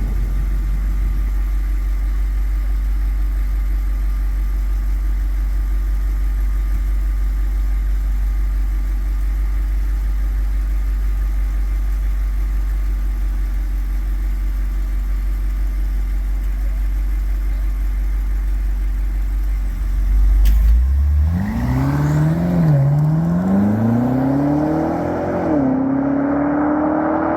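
BMW X5 M's S63 twin-turbo V8 through an aftermarket titanium valved exhaust: a steady low drone while cruising, then about 20 s in a hard acceleration, the revs climbing and falling back at two upshifts.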